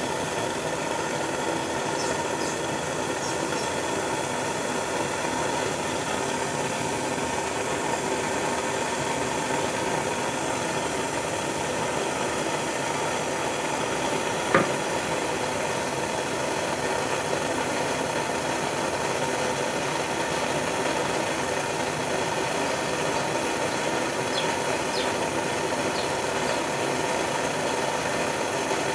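Small handheld propane torch burning with a steady hiss while it heats a horseshoe nail for forging. A single sharp click sounds about halfway through.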